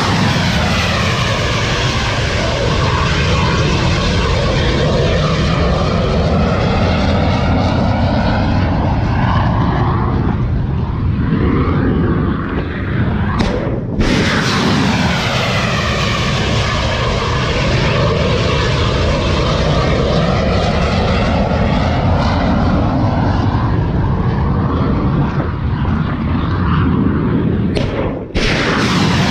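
Tomahawk cruise missiles launching one after another from a destroyer's vertical launch cells: the solid-rocket booster's loud, steady rushing noise, with a slow sweeping, phasing quality as the missile climbs away. The noise breaks off suddenly about 14 seconds in and again near the end, each time starting afresh with the next launch.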